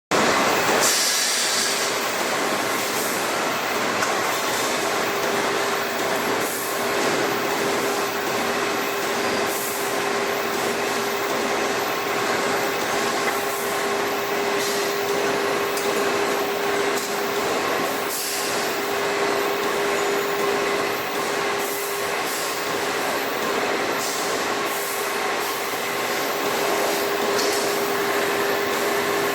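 Industrial tire-shredding line for tire-derived fuel running continuously: a loud, steady mechanical din with a constant hum and a few brief hisses.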